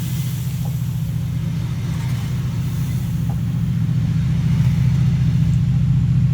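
Diesel train engine running with a steady low drone that grows slowly louder, as from a diesel multiple unit drawing near or working in the station.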